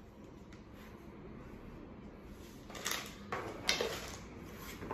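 Plastic parts of a baby piano play gym being handled: a few short rustles and light plastic knocks, mostly in the second half.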